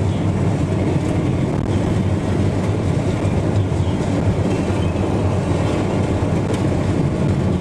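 Car driving on a gravel road: a steady low rumble of tyres rolling over gravel.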